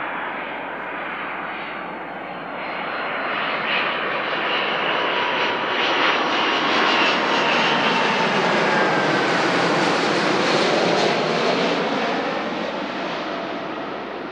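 Kawasaki C-2 transport jet on final approach, its two General Electric CF6 turbofans growing louder as it comes in low, loudest as it passes overhead, then falling in pitch and fading as it moves away.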